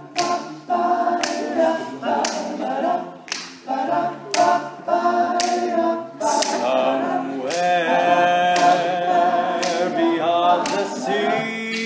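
All-male a cappella group singing in harmony with no instruments, with a sharp snap about once a second keeping the beat, from the singers' finger snaps.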